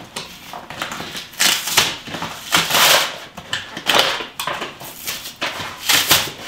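Large cardboard box being pulled open by hand: irregular bursts of cardboard flaps scraping and rustling.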